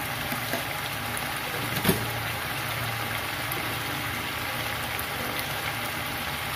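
Shrimp in a yellow spiced sauce simmering in a frying pan: a steady bubbling hiss over a low hum, with a single short knock about two seconds in.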